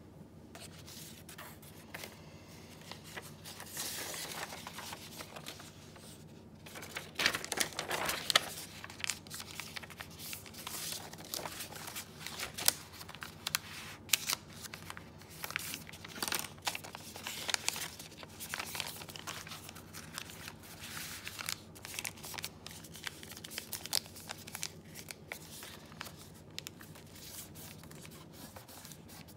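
Sheets of printed paper being handled and moved over a sketchbook page: irregular rustling and crinkling, loudest about seven to eight seconds in.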